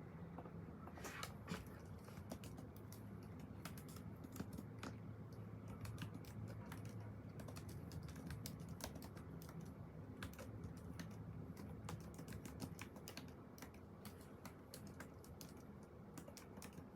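Typing on a computer keyboard: quiet, irregular key clicks, over a low steady hum.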